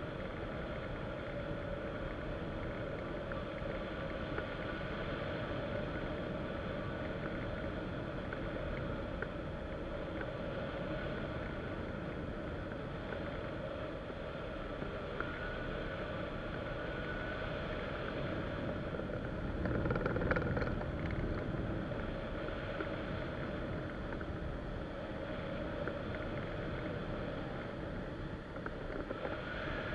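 Steady rush of airflow over a hang glider's wing and its wing-mounted camera in flight. It swells briefly, louder, about two-thirds of the way through.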